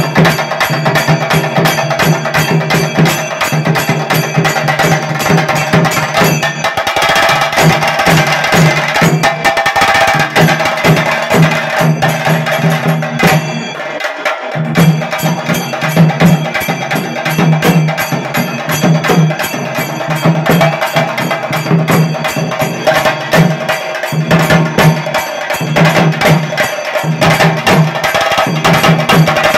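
Chenda drums beaten with sticks in a fast, continuous rhythm, with a brief drop-out about halfway through.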